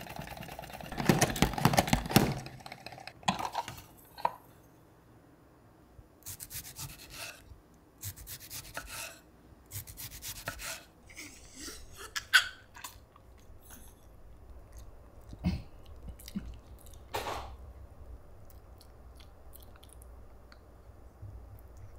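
Pump-action salad spinner whirring and rattling as its basket spins, then winding down and stopping about three and a half seconds in. Later a knife slices through a tomato onto a wooden cutting board in a run of sharp strokes.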